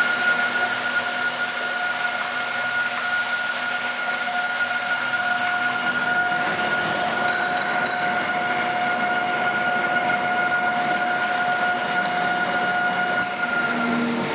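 3000L vacuum mixer homogenizer running: a steady high machine whine over an even hiss, with no change in speed.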